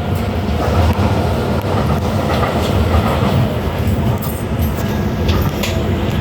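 Docklands Light Railway train running along the line: a steady rumble of wheels and running gear on the rails, with a few sharp clicks past the middle as the wheels cross rail joints.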